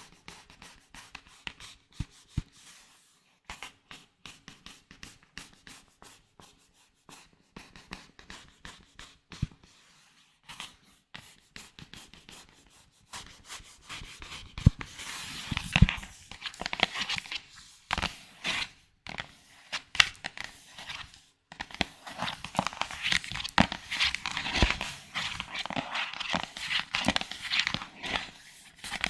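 Close-miked ASMR trigger sounds: hands handling small objects, giving a run of fine crackling, tapping and rubbing. Sparse at first, thicker and louder about halfway through.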